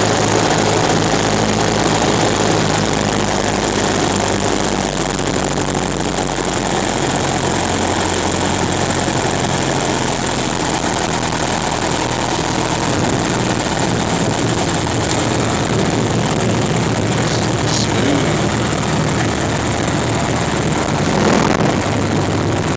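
Cessna 172's piston engine and propeller running at low power through the landing and rollout, heard inside the cockpit with heavy wind noise. The level stays steady, and the engine note changes pitch about five seconds in.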